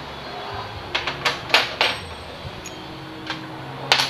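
Metal hand tools and parts clinking against each other as they are handled: four sharp clanks between one and two seconds in, then two more near the end.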